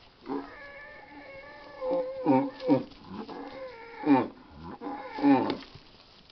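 Cattle bellowing while two bulls fight head to head: one long held call overlapped by several loud calls that slide steeply down in pitch, stopping a little before the end.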